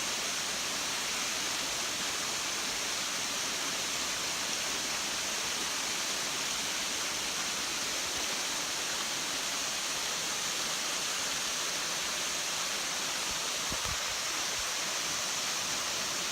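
Waterfall on a mountain creek, water falling and splashing in a steady, even rush.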